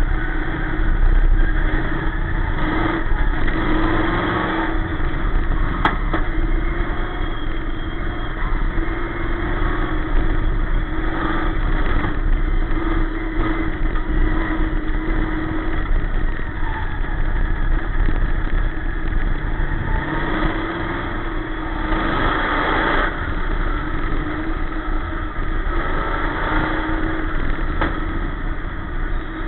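Dirt-track sportsman race car's V8 engine running hard on the track, heard from inside the cockpit over wind and chassis rumble. The engine note rises and falls as the car goes through the corners and down the straights.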